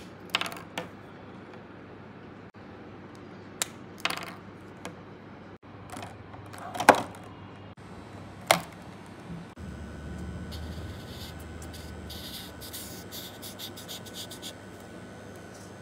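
Copic Classic alcohol markers handled against their clear plastic case: a scattered series of sharp plastic clicks and knocks as markers and caps are picked up and pulled. Near the end a broad chisel nib scratches across paper in quick short strokes.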